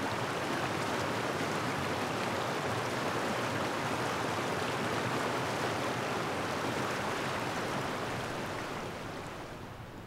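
Shallow mountain stream rushing steadily through the culverts and over the stones of a low concrete ford; the rush fades near the end.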